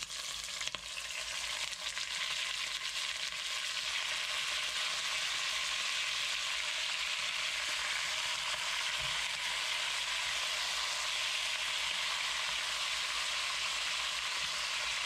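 Skin-on chicken pieces sizzling in hot olive oil in a Dutch oven, skin side down. The sizzle grows over the first few seconds as more pieces go into the pot, then holds steady.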